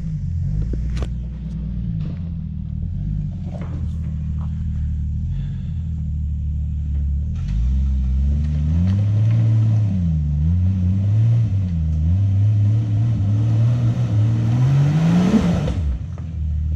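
Jeep engine running on a rough off-road trail, revs rising and falling again and again as the throttle is worked, then climbing steeply near the end and dropping off suddenly. A few sharp knocks and clatters come in the first few seconds.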